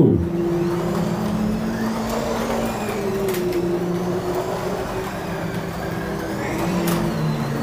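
Race-car engine drone for racing 1/24 scale Carrera Digital slot cars, steady and wavering slightly in pitch, with two sharp clicks about three and seven seconds in.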